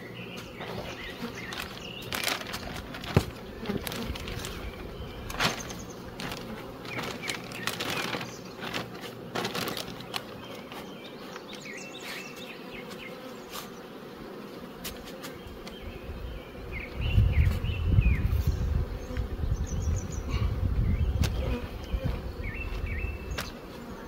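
Honeybees buzzing around an open hive, with clicks and plastic rustling as a clear plastic sheet and a cloth cover are laid over the frames. A louder low rumble comes in about two-thirds of the way through.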